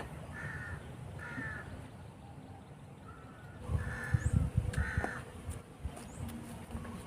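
Crows cawing, about five short harsh calls spread over several seconds. A low rumbling thump noise on the microphone rises about four seconds in and is the loudest thing for a second or so.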